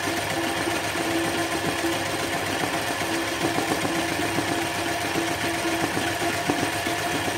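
Sewing machine running continuously while free-motion embroidering, its needle stitching in a rapid, even clatter over a motor hum that drops out and returns as the speed changes.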